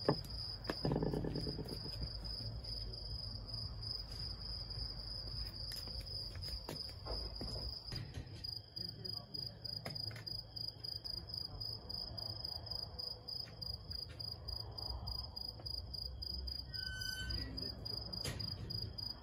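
A cricket trilling steadily at a high pitch, with a pulsing texture, over a low rumble. There is a brief knock right at the start.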